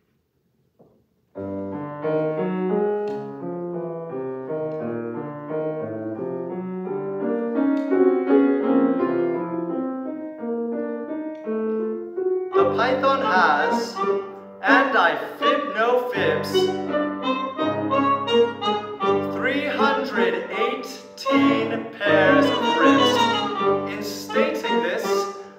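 A grand piano plays a solo passage of separate notes; about halfway through, a trumpet comes in and plays together with the piano.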